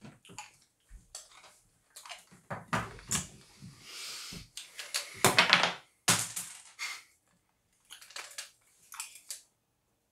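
Clicks and clatters of a metal can of hard lemon candy slices being handled and tilted, the candies rattling against the tin, loudest about five seconds in.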